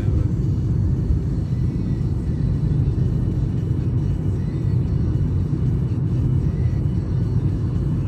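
Steady road and engine rumble inside the cabin of a Lada Vesta Cross driving through town, with music faintly in the background.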